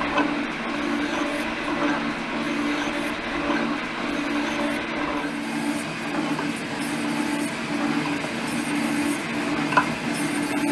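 G&E metal shaper running, its ram stroking back and forth in a steady repeating rhythm as a shear tool cuts across an aluminum plate. A single sharp click near the end.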